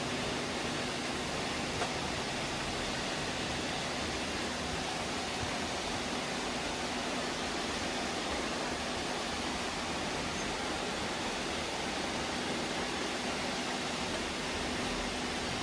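Many robot vacuums running at once: a steady whirring hiss of their fans and brushes with a low, constant hum underneath.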